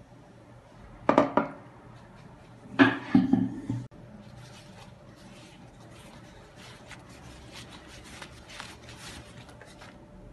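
Two short knocks and scrapes, about one and three seconds in, then a soft, irregular crinkling rustle of a thin yufka pastry sheet being spread over an oiled skillet.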